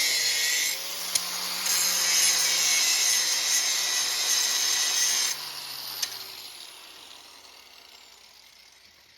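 Grinder grinding out the rivet of a quick-release bar clamp: a steady, hissing grind that eases briefly about a second in. About five seconds in the grinder is let off, and its wheel winds down with a fading, falling whine.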